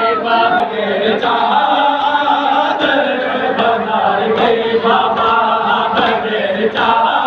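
Crowd of male mourners chanting an Urdu noha together in a slow lament, with sharp slaps at irregular intervals.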